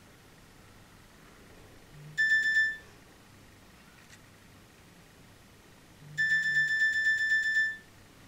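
Mobile phone alarm going off: a short burst of rapid, high electronic beeping about two seconds in, then a longer burst of about a second and a half near the end.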